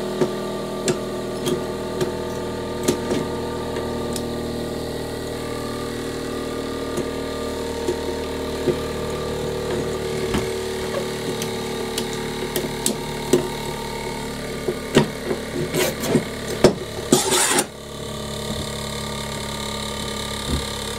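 Clicks and knocks of a metal clamp bar being worked down through a hole in a wooden workbench and a clamp head being fitted onto it. The knocks bunch up in the last few seconds, with a short scrape a little before the end. A steady motor hum runs underneath.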